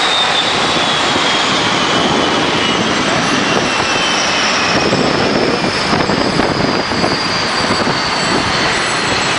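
Boeing 747 jet engines running loud and steady, a dense rush of jet noise with a high whine that slowly falls in pitch.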